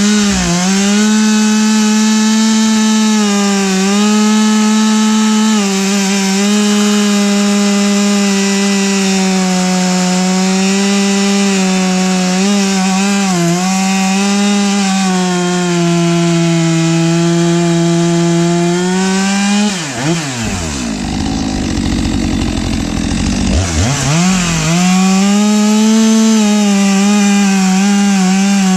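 STIHL MS 462 two-stroke chainsaw running at full throttle while bucking logs, its high engine pitch wavering slightly under load. About 20 seconds in the revs drop and swoop back up twice, then it runs at full throttle again.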